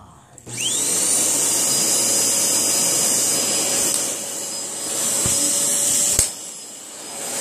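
An electric fan-motor appliance is switched on about half a second in. Its motor spins up with a rising whine, then runs steadily with a loud rushing hiss and hum. There is a sharp click about six seconds in, and the noise dips briefly near the end.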